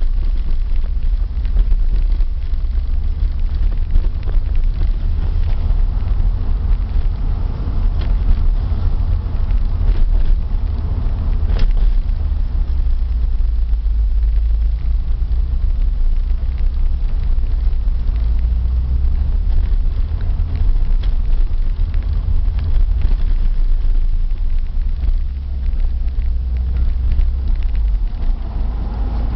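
A Subaru Impreza GC8 on the move: a steady low rumble of road and running noise, in which lies the drone of a worn wheel hub bearing.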